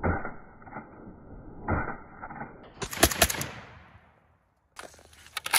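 AK-47-type rifle in 7.62×39 fired rapidly: a quick burst of several shots about three seconds in, echoing away, and a few more shots near the end. Before the burst, a slowed-down replay of shots sounds dull and drawn out.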